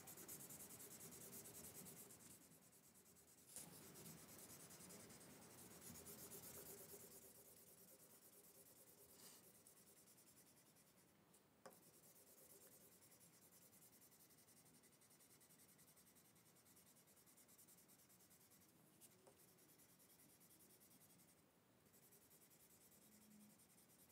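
Faint scratchy rubbing of a felt-tip marker colouring back and forth on paper, fainter after about seven seconds, with a few small clicks.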